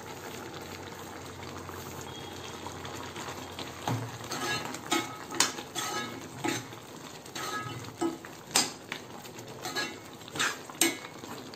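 Mutton gravy simmering and bubbling in a kadai, then a steel spoon stirring it, scraping and knocking against the pan again and again from about four seconds in.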